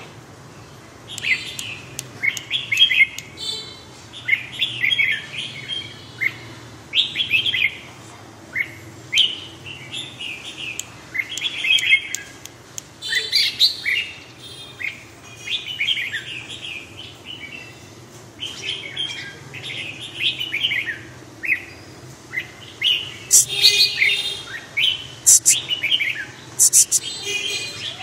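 Red-whiskered bulbul singing: short whistled phrases, about one a second, with a few sharp clicks near the end.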